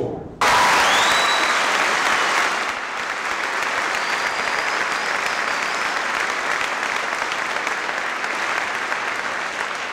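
Audience applauding: the clapping starts abruptly, is loudest for the first couple of seconds, then holds steady before fading near the end.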